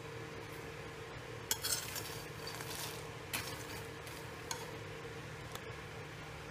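Steel spoon stirring salted peanuts dry-roasting in a nonstick pan: the nuts rattle and the spoon scrapes and clinks against the pan, busiest from about one and a half to three and a half seconds in. A couple of single clicks follow, all over a low steady hum.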